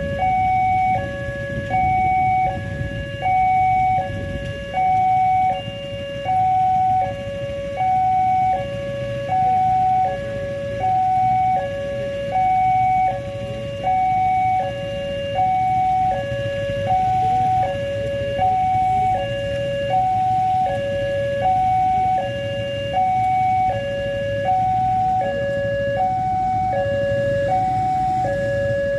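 Electronic railway level-crossing warning alarm from the loudspeaker on the crossing signal post: two steady tones alternating high and low, about one cycle every second and a half, sounding while the barriers are down for an approaching train. A low rumble of idling road traffic runs underneath.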